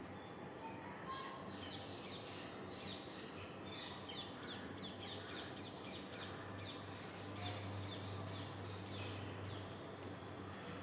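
Birds chirping: many short, quick, down-sweeping calls in a busy chorus, with a low steady hum coming up about halfway through.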